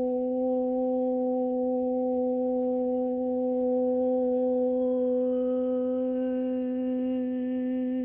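A voice humming one long, steady held note, toned as part of a light-language channelling; its tone brightens a little about five seconds in.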